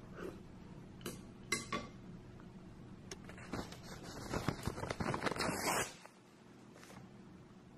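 Kitchen clatter: a few light clinks, then a quick run of dishes and cutlery clattering, over a low steady hum. It all cuts off suddenly about six seconds in.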